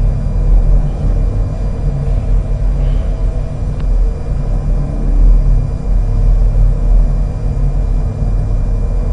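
Steady low rumble, like a vehicle engine or traffic, with a faint steady hum over it and one faint tick about four seconds in.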